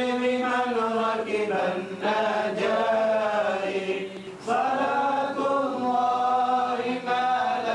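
Vocal chanting in long, melodic held phrases, with a short break about four seconds in.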